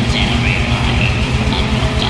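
Black metal song: distorted electric guitars over fast, evenly spaced kick-drum pulses, loud and dense.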